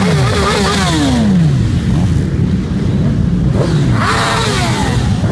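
A procession of sport motorcycles riding past, engines revving, with their pitch falling as each bike goes by. More revving rises and falls again about four seconds in.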